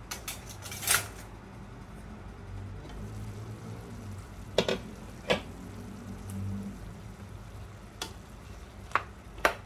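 Diced apples cooking in a stainless steel pot, with a soft steady simmer under it. A handful of sharp metal clinks come from the glass lid and a metal slotted spoon knocking against the pot as the apples are stirred.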